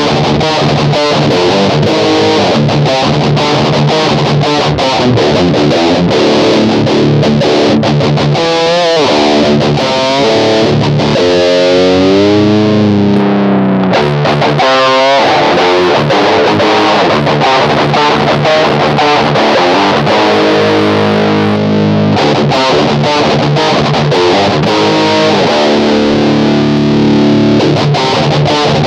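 Electric guitar played through an Electro-Harmonix Metal Muff Pocket high-gain distortion pedal with its toggle on HI: heavily distorted riffing with many quick, sharp picked chords. About a third of the way through it gives way to a few held, bent notes with vibrato before the riffing returns.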